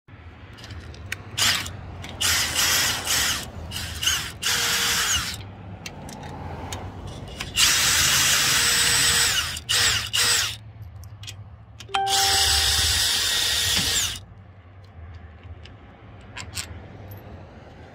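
Cordless drill with a socket bit driving the mounting bolts of a Solera power awning motor, run in short bursts at first and then in two longer runs of about two seconds each.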